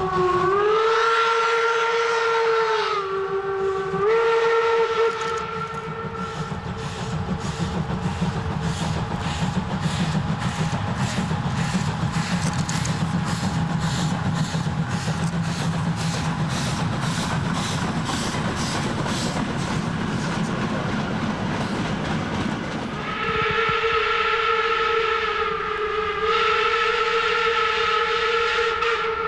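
DB class 64 steam tank locomotive 64 419 working a train. Two whistle blasts come at the start, the first sliding up in pitch as it opens. Then a long stretch of steady, rhythmic exhaust chuffs, and near the end two more long whistle blasts.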